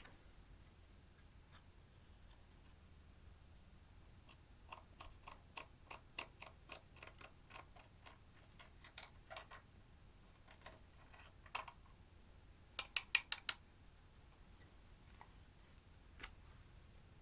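Clear slime being worked by hand, giving a run of small clicks and pops about two or three a second, then a quick cluster of four sharper pops near the middle and a single pop near the end.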